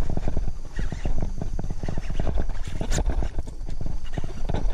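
A fishing reel clicking rapidly and steadily as the rod is loaded by a hooked charcoal snakehead, with a low rumble underneath.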